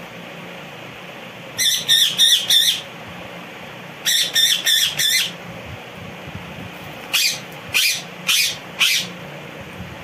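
Indian ringneck parakeet calling: three loud runs of high-pitched notes, the first two of about four quick notes each, the last of four notes spaced about half a second apart, over a steady low hum.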